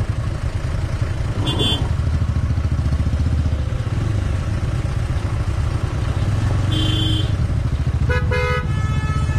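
Bajaj Avenger 220's single-cylinder engine running at low speed, a steady pulsing rumble. Vehicle horns toot briefly about a second and a half in, again around seven seconds, and in a few quick blasts near the end.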